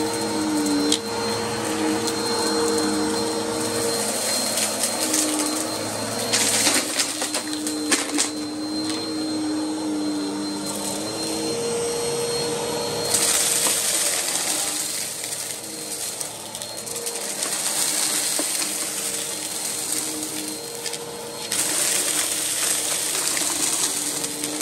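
Vacuum cleaner running with a steady motor whine, sucking up dirt. Stretches of louder hissing come at about 6, 13 and 22 seconds in.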